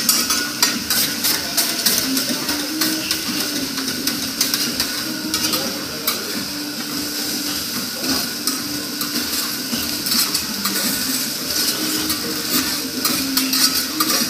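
Metal spatulas clacking and scraping on a hot steel teppanyaki griddle as fried rice is chopped and turned, over a steady sizzle.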